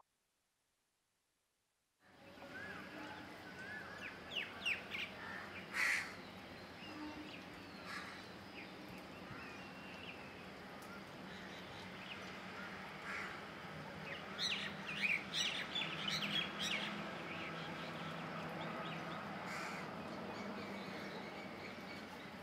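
Birds calling in short chirping bursts over a steady outdoor background hum, with a few sharp clicks, the loudest about six seconds in. It starts after about two seconds of silence.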